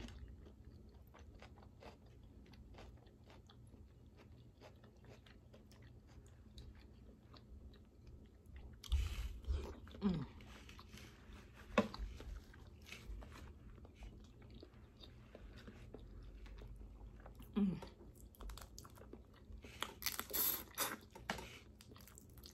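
Someone eating boiled crawfish: chewing and smacking with many small clicks of shell, and louder bursts of crunching about nine, twelve, seventeen and twenty seconds in.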